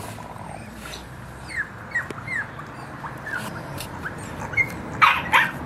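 English bulldog puppies whimpering and yipping: a string of short, high, falling yelps, then two louder yips near the end.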